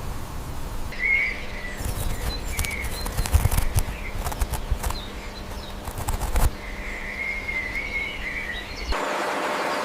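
Bird chirping in short wavering calls, with sharp clicks and knocks and a low rumble under it. About nine seconds in it cuts suddenly to a steady hiss.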